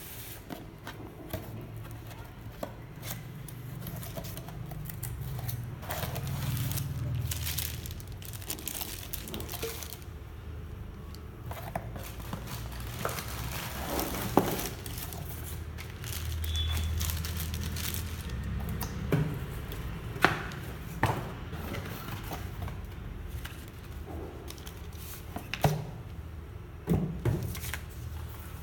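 Packaging being handled: cardboard box and plastic wrapping crinkling and rustling as the parts of a mini chopper are pulled out and unwrapped, with scattered sharp knocks and clicks as the plastic bowl and other pieces are set down on a tile floor.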